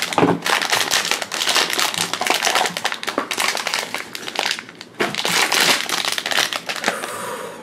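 Metallic foil blind bag crinkling and crackling steadily as it is handled and opened by hand, with a short pause about two-thirds of the way through.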